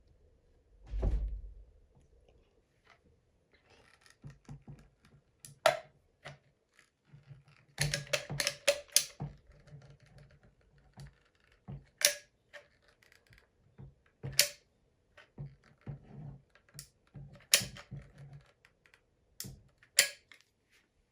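A dull thump about a second in, then scattered sharp clicks and knocks, several in quick succession around the middle, like hard objects or tools being set down and handled.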